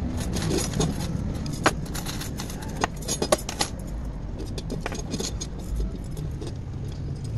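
Loose steel wheel spokes clinking and jangling against each other and the rim as a bundle is handled and spokes are threaded through the hub and rim, with scattered sharp clinks bunched about three seconds in.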